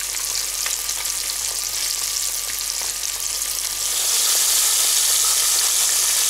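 Pieces of carp frying in hot oil in a pan: a steady crackling sizzle that gets louder about four seconds in.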